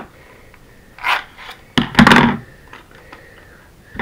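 Plastic toy pistol handled on a wooden tabletop: knocks and rubbing, with a sharp click a little under two seconds in and a louder clatter right after it.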